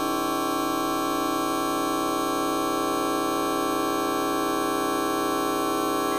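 A fart sound effect time-stretched to extreme length, heard as a steady, unchanging drone of several held tones, the strongest low in pitch, with a buzzy, synthesizer-like quality.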